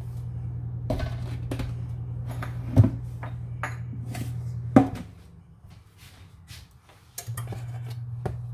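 Stainless steel mixing bowl set down and shifted on a granite countertop: a few metallic knocks and clanks, the loudest about three and five seconds in. A steady low hum runs underneath and drops out for a couple of seconds after the second loud knock.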